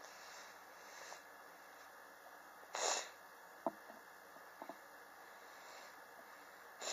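A person coughing: one short cough about three seconds in and another at the very end, with fainter breathy bursts near the start. This is a chronic cough, which the person puts down to extreme temperature changes in their apartment.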